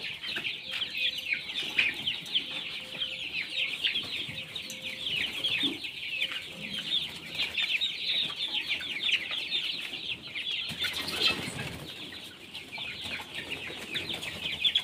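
A flock of young desi chickens peeping and chirping together, a dense, continuous chatter of short high calls. A brief louder, lower sound comes about eleven seconds in.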